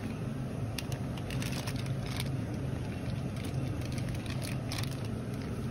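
Steady low hum of supermarket refrigerated display cases and air handling, with a few faint scattered clicks.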